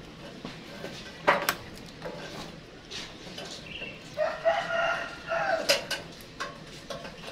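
A drawn-out animal call lasting about a second and a half, a little past the middle. A sharp click comes about a second in, with a few fainter clicks around it.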